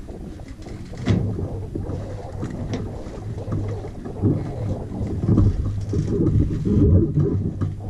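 Wind buffeting the camera's microphone on the deck of a sailing catamaran under way, with a low steady hum underneath; the buffeting swells in gusts over the second half.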